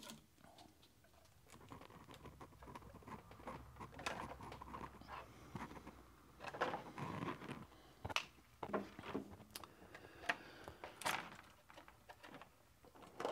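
Light clicks, taps and scrapes of small pliers and fingers working at a circuit board and the plastic case of a battery module.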